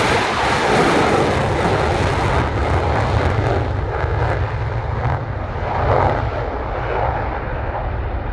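Saab Gripen F-39 fighter jet's single GE F414 turbofan at takeoff power with afterburner, a loud, steady jet noise with a deep rumble underneath as the jet rolls and lifts off; the hiss at the top slowly fades.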